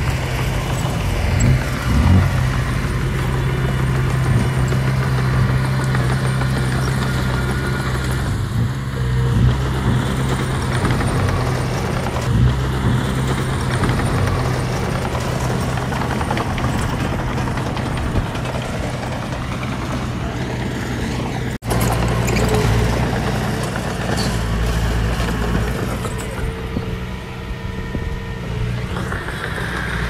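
Diesel engine of heavy earthmoving equipment running steadily under work, with a few brief knocks and clanks. The sound breaks off for an instant about two-thirds of the way in, then carries on.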